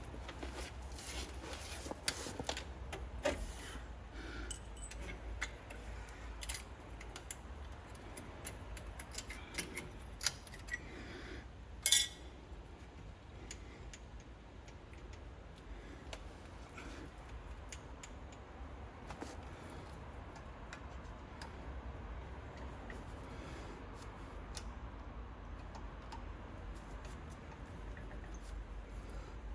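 Scattered metallic clicks and clinks of small hand tools on a Brembo front brake caliper, a small punch being worked against the pad retaining pins. Every few seconds comes a sharper tap, the loudest about twelve seconds in.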